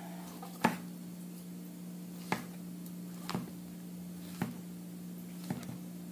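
Kitchen knife slicing button mushrooms on a plastic cutting board: about five sharp knocks, roughly a second apart, as the blade goes through and meets the board, over a steady low hum.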